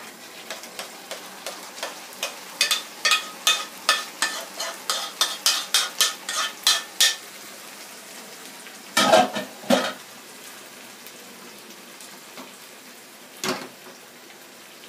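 Boiled tomatoes poured and scraped out of a metal pot into a frying pan of browned onions, sizzling in the hot oil, with a quick run of metal scrapes and taps for the first several seconds. Two louder clanks of cookware come about nine seconds in, and another knock near the end.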